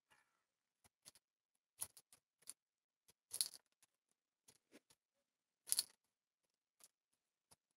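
Pigeon pecking grain from a plastic bowl: faint, irregular clicks and taps of its beak on the grain and bowl, the loudest about three and a half and six seconds in.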